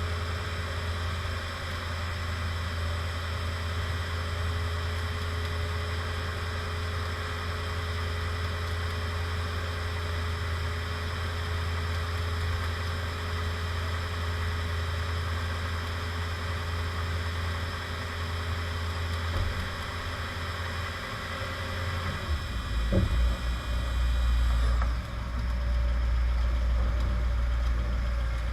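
Toyota Tundra pickup idling steadily with a low hum. About 23 seconds in comes a brief thump with a short rise in level, and the low rumble then deepens and grows louder.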